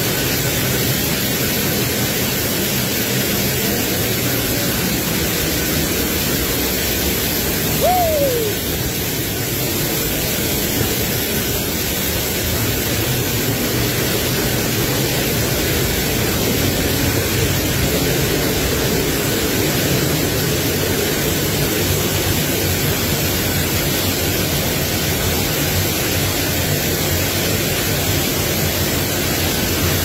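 Waterfall roaring, a steady loud rush of falling water. About eight seconds in, one short falling tone stands out briefly above it.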